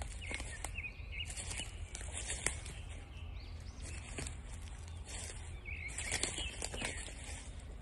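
Footsteps crunching irregularly through dry fallen leaves, with a couple of brief bird chirps, one early and one about six seconds in.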